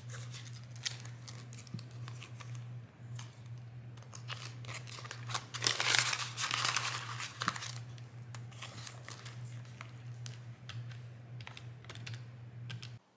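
Paper banknotes and the clear plastic pockets of a budget binder rustling and crinkling as cash is handled, with scattered light clicks and a louder stretch of crinkling about six seconds in. A steady low hum runs underneath and cuts off suddenly near the end.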